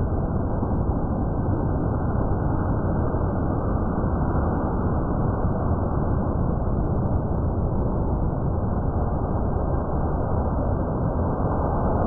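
A thunderstorm's own recorded sound slowed to one tenth of its speed, which turns it into a steady, deep rushing rumble.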